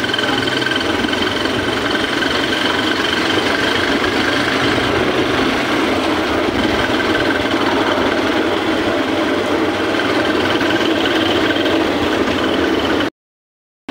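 Steady running of a small vehicle engine with road noise, heard from on board while driving along. It cuts off abruptly near the end.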